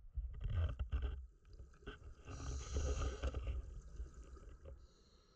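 Scuba diver breathing through a regulator underwater: a rumble of bubbling exhaust in the first second, then a hissing inhale lasting about a second from about two seconds in.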